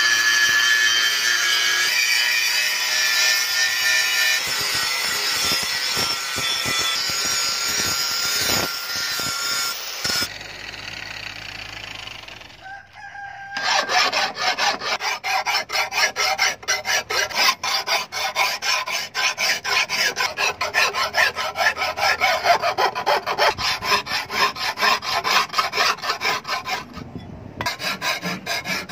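Angle grinder with a sanding disc grinding a steel knife blade, its motor running steadily, then spinning down about ten seconds in. From about a third of the way in, a long-handled hand tool is drawn rapidly back and forth along the steel blade in quick, even rasping strokes, with a short break near the end.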